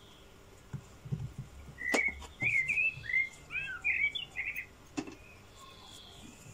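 A small bird chirping a quick run of short, up-and-down notes for about two and a half seconds, with soft knocks and a couple of sharp clicks from a cardboard box being handled.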